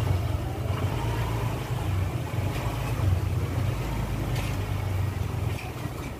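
An engine running steadily, a low even hum that cuts off abruptly at the end.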